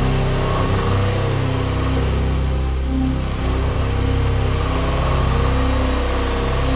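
Mitsubishi Outlander Sport's engine running at raised revs under load as the small SUV pushes through deep, rutted snow, its pitch wavering up and down.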